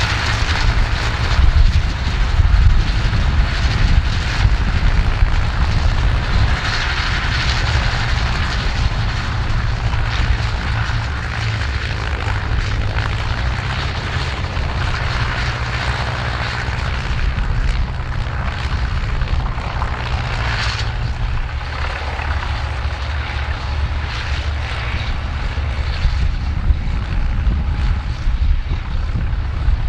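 Ford farm tractors' diesel engines running steadily under load while working cultivating implements through ploughed soil, a deep engine note throughout, a little louder in the first several seconds.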